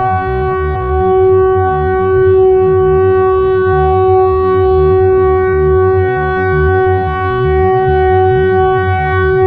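Diesel locomotive's air horn sounding in one long, unbroken blast at a single steady pitch as the train bears down on the level crossing, with a low rumble underneath.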